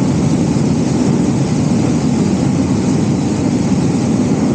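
Hot-air balloon's twin propane burner firing in one long, steady blast: a loud, even rushing noise, heaviest in the low-middle range.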